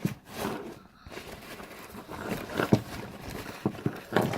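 Rummaging in a drawstring cinch bag: fabric rustling with a few irregular knocks as items inside are moved about.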